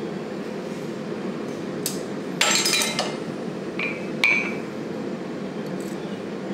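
Steel tongs and a hammer clinking and clattering on an anvil as they are set down and handled: a short clatter about two and a half seconds in, then a few sharp, ringing clinks. A steady low shop hum runs underneath.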